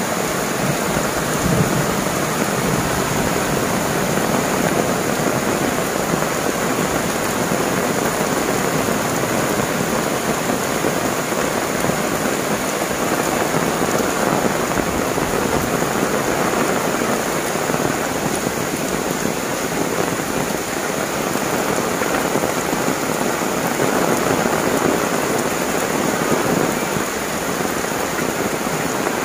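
Heavy tropical rain falling steadily on leaves, a tiled roof and an umbrella overhead: an even, continuous hiss.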